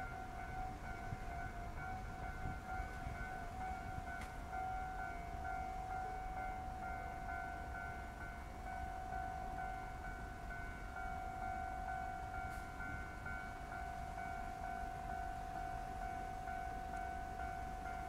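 Japanese railway level-crossing warning alarm sounding steadily, a rapidly repeating electronic tone with the barriers down, the signal that a train is approaching.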